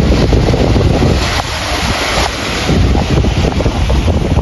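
Sea surf washing in under heavy wind buffeting the microphone, with a louder hissing surge about a second and a half in.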